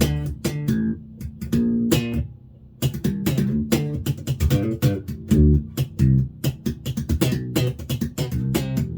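Hammer 5-string mini bass played through a Warwick BC10 bass amp: a run of sharply plucked bass notes, with a short pause about two and a half seconds in.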